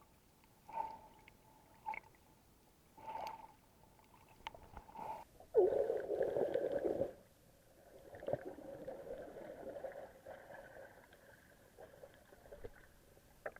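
Water gurgling and sloshing in short bursts, with a louder rush of water about halfway through, then a steadier wash.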